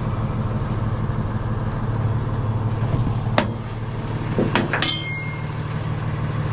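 Tow truck engine idling steadily, with a sharp metallic clink about three and a half seconds in and a quick run of clinks a second later as the steel hook of a wheel tie-down strap is handled on the flatbed deck.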